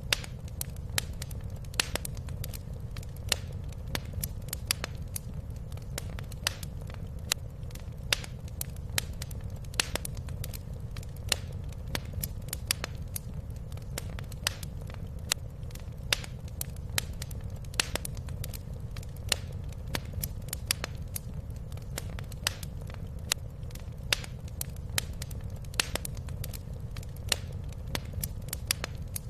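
Wood fire crackling in a fireplace: irregular sharp pops and snaps, a few each second, over a steady low rumble.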